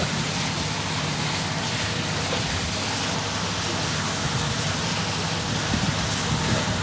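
Steady rushing wind-and-water noise at the waterside, with a low engine hum from the moored boat underneath and a few soft knocks near the end.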